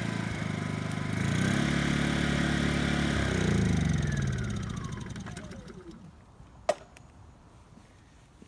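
Honda inverter generator running steadily, then shut off about three and a half seconds in, its engine note falling in pitch and fading out over a couple of seconds. A single sharp click follows near the end.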